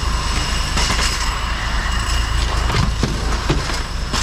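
Plastic crates of whitebait rattling as they roll along a metal roller conveyor, over a steady low engine hum.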